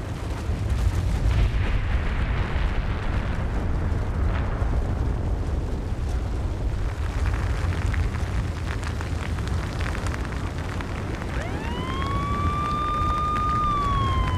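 Deep, steady rumble of a pyroclastic flow sweeping down the valley. About eleven seconds in, a warning siren winds up to a held wail, then begins to slowly fall.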